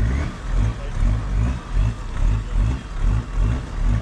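Off-road 4x4's engine rumbling and revving in repeated surges, about two or three a second.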